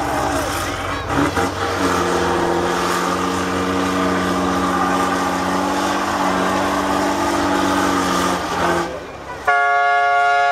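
Tatra 813 8x8 trial truck's diesel engine labouring under heavy load at steady revs as it climbs a steep bank. Near the end a horn blares once for about a second.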